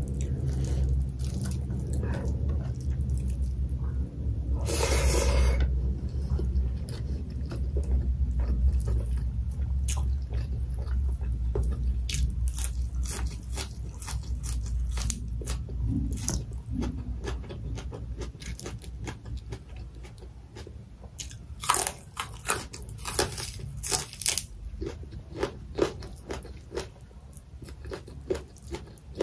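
Close-up chewing and crunching of a hand-eaten meal of mutton head meat, rice and greens, with many sharp wet mouth clicks. There is a brief louder noise about five seconds in.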